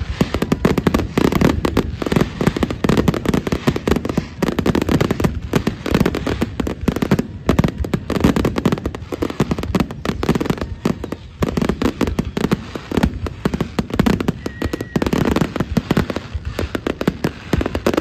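Fireworks finale: a continuous barrage of aerial shells bursting, with many bangs following closely and overlapping.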